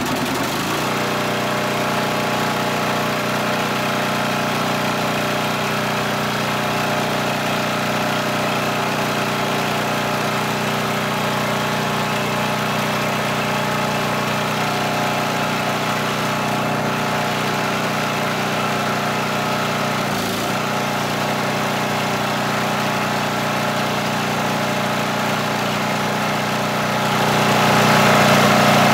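Coleman Vertex 7500 portable generator's engine running steadily at an even speed, and getting a little louder near the end.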